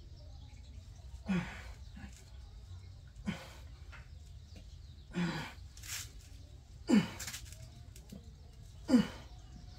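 A man breathing out hard with a short grunt on each rep of one-arm dumbbell rows, five times about every two seconds.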